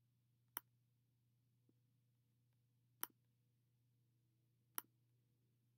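Three sharp computer mouse clicks, spaced a second or two apart, over a faint steady low hum.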